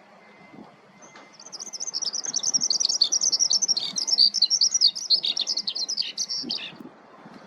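Eurasian skylark singing: a fast, continuous stream of high, twittering notes that starts about a second in and stops about a second before the end.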